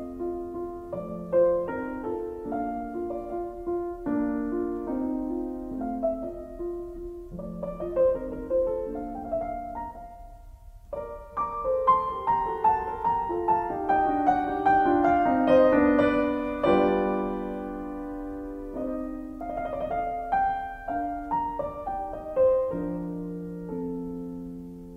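Solo piano music, dipping quietly about ten seconds in before a fuller passage with higher notes.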